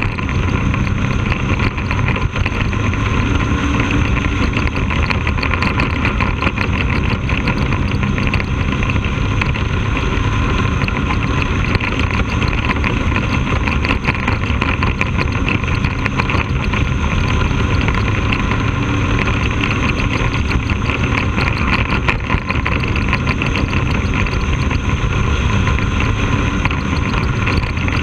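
Bandolero race car's 570cc Briggs & Stratton V-twin engine running steadily at speed around a short oval, heard from an onboard camera on the car's nose.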